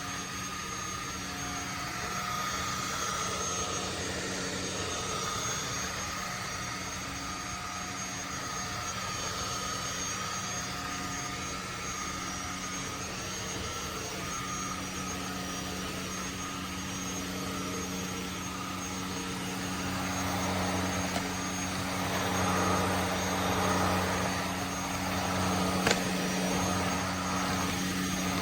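Cordless stick vacuum cleaner running steadily with a continuous motor whine. It gets a little louder about two-thirds of the way through, and there is a single sharp click near the end.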